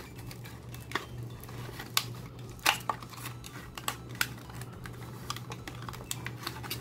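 Plastic blister of a Hot Wheels card being cut open with a snap-off utility knife: a string of sharp, irregular clicks and cracks as the blade works through the plastic, over a faint steady hum.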